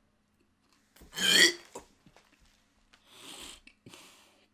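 A man gagging after swallowing a cricket: one loud, short retching heave about a second in, then two quieter breathy sounds.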